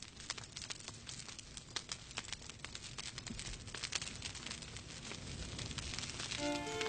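Wood fire in a fireplace crackling, with irregular sharp pops and snaps. Violin music comes back in near the end.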